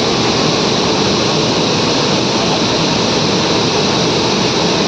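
Steady, loud, even din of running flour-mill machinery, a continuous rushing noise with no breaks or changes.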